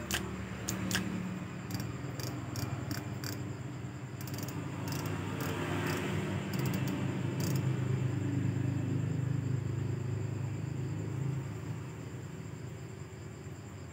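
A run of light clicks from a Shimano Biomaster C5000 spinning reel being handled and worked by hand, followed by a low steady hum that swells over several seconds and then fades.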